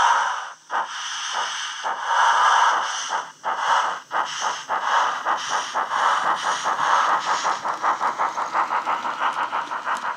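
DCC sound decoder in a Hornby model of a BR Crosti 9F steam locomotive, playing steam exhaust through the model's speaker as the loco gets under way with its train. It starts with a few long, heavy chuffs with hiss, and the beats quicken steadily to about five a second.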